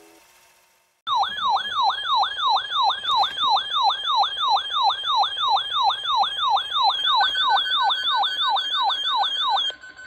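RadioShack NOAA weather radio sounding its siren alert, the sign that a weather warning has been received: an electronic tone that falls in pitch over and over, about three sweeps a second, starting about a second in. About seven seconds in a steady higher beep joins it, and both cut off just before the end.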